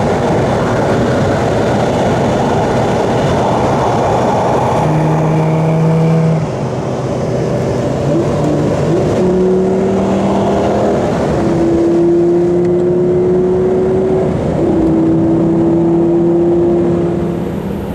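Lamborghini Gallardo V10 engine pulling hard under acceleration, its pitch climbing slowly through each gear and dropping at several gear changes.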